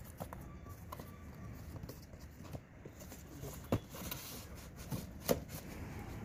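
Cardboard carton being handled, its flaps opened and folded, with a few light knocks and scrapes over low outdoor background noise.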